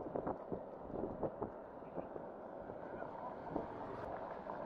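Wind on the microphone and road noise from a moving electric scooter, steady throughout, with a few light knocks in the first second and a half and another a little past the middle.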